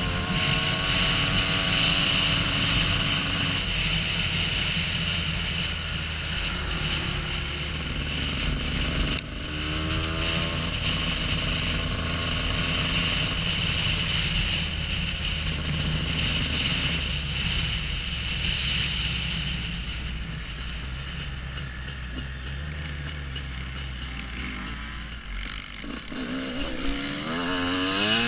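Husqvarna WR250 two-stroke enduro motorcycle engine being ridden off-road, the revs rising and falling repeatedly with a steady hiss over it. There is one sharp knock about nine seconds in.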